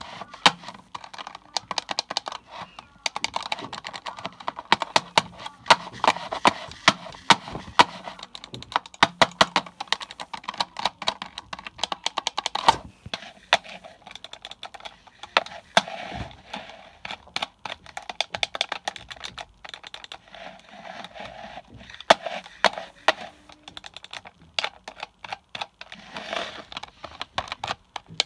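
Computer mouse clicking, many sharp clicks in irregular quick runs, with softer rustling noise between them.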